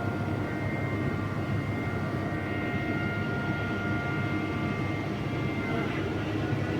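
Heavy machinery running steadily: a low engine rumble with several steady whines over it.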